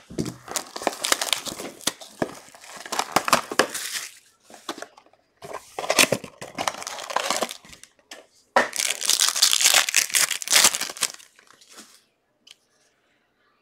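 Panini basketball trading card box and foil pack wrapper being torn open by hand: crinkling and tearing in three long spells, stopping about twelve seconds in.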